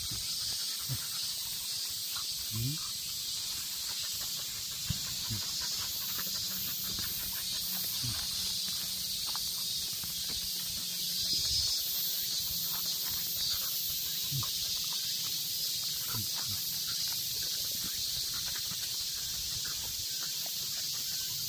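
A steady, high-pitched insect chorus from the vegetation, with faint scattered scuffs and sniffing from two leashed dogs walking beside it.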